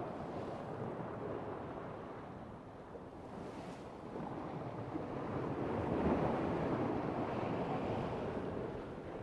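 Sailboat hull pushing through waves under sail, with water rushing and splashing along the sides and wind on the microphone. The rush swells louder about six seconds in, then eases.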